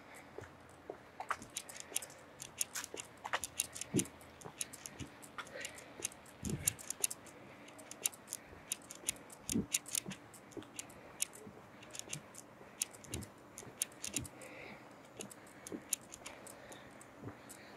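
Irregular sharp clicks and ticks, several a second, with a few duller thumps now and then over a faint steady background.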